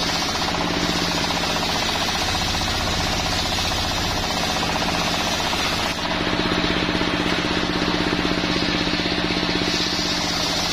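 Homemade circular sawmill ripping jenitri wood: the blade cutting through the timber over the steady, fast-pulsing run of the engine that drives it under load, with a brief dip about six seconds in.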